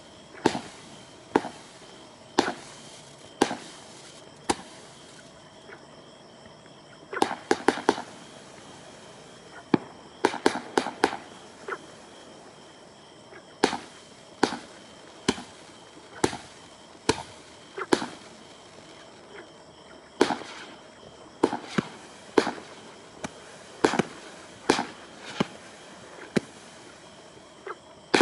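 Kimbolton Leto's Charm 84-shot cake, a quiet display in a box, firing shot after shot. The shot tubes give sharp reports about one a second, with quick flurries of several shots at about seven and ten seconds in.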